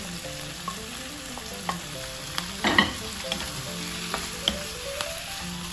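Chicken wings and onions sizzling in oil in a wok, with a wooden spatula scraping and tapping against the pan as diced carrots are stirred in; one louder scrape comes about halfway through.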